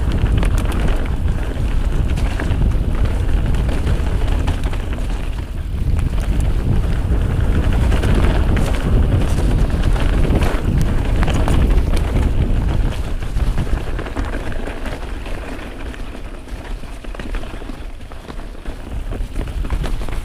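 Wind buffeting the camera's microphone over the rumble of a full-suspension mountain bike (Giant Trance Advanced) rolling fast down dirt singletrack, its knobby tyres on dirt and leaves and many short rattles and knocks as it rides over roots and rocks. The noise eases from about fourteen seconds in and builds again near the end.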